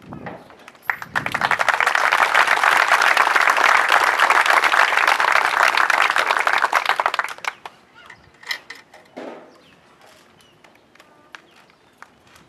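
Audience applauding. The applause builds about a second in, holds steady and dense, and dies away after roughly seven seconds, leaving a few scattered faint knocks.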